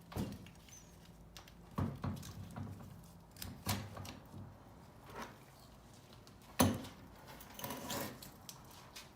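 Hand work on an air handler's blower assembly while a replacement motor is mounted: scattered knocks, clicks and light clanks of metal parts and tools being handled. The loudest knock comes about two-thirds of the way through.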